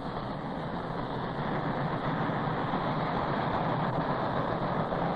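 Norfolk & Western A-class articulated steam locomotive and its train running past, a steady rush of noise that grows slowly louder.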